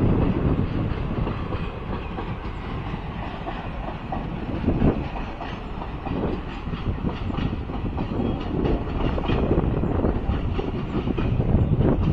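Karnataka Express passenger coaches running through without stopping, wheels clicking over the rail joints in a steady clickety-clack under a rumbling rush of train noise.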